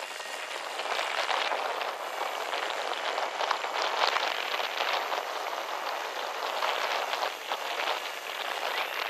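Strong wind buffeting the microphone: a dense, crackling rush of noise that rises and falls unevenly in gusts.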